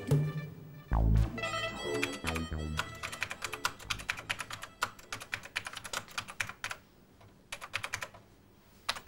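A short phrase of background music with several notes in the first three seconds, then a run of rapid, irregular light clicks, many a second, that thin out and stop shortly before the end.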